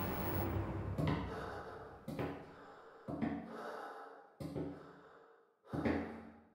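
A series of five sudden hits about a second apart, each with a low tone that rings on and dies away, the last one the loudest: sound-design impacts.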